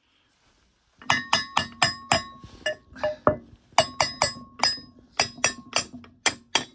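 Hammer striking a steel part of a wood chipper's blade drum assembly to knock it loose, starting about a second in and going on as quick runs of sharp blows, about three a second, with a metallic ring after several of them.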